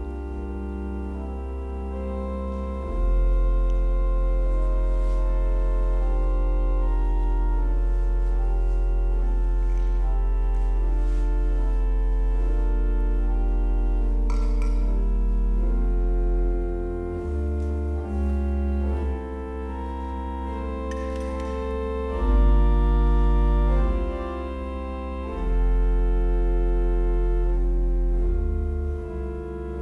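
Church organ playing slow held chords over deep pedal bass notes. The bass notes drop out and come back several times.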